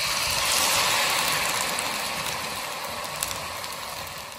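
Battered potato pinwheel samosas deep-frying in hot oil in a frying pan: a loud sizzle with small pops and crackles. It swells as another pinwheel is lowered into the oil at the start, then slowly dies down.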